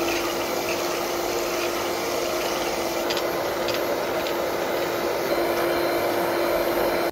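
Electric hand mixer (beater) whipping egg whites in a bowl, its motor running steadily with an even whine. It cuts off suddenly at the end.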